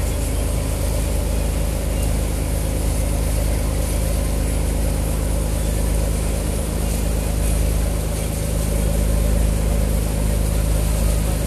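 Tour boat's engine running steadily under way, a low drone, with the rush of the wake and wind over it.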